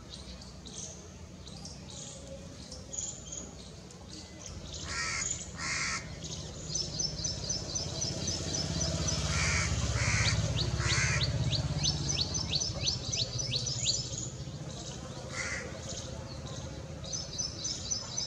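Birds calling: a handful of harsh cawing calls in twos and threes, and a smaller bird's rapid high-pitched trills repeating in three runs, over a low background rumble.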